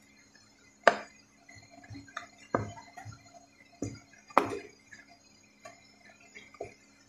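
Wooden spoon stirring a wet spinach and tomato mixture in a metal pot: a few sharp knocks of the spoon against the pot, spaced about a second apart, with soft wet stirring sounds between them. A faint steady hum runs underneath.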